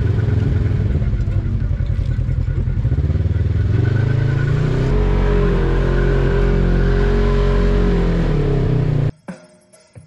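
Side-by-side UTV engine running under load on a dirt trail. It picks up revs about four to five seconds in and holds a steady higher pitch, then cuts off abruptly near the end.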